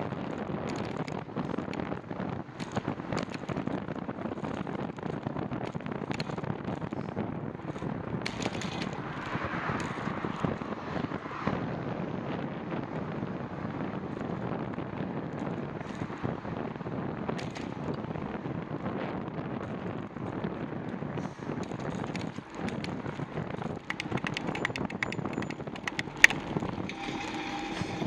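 Wind rushing over the microphone of a camera mounted on a moving bicycle, with frequent small knocks and rattles from the bike and mount, and one sharper knock near the end.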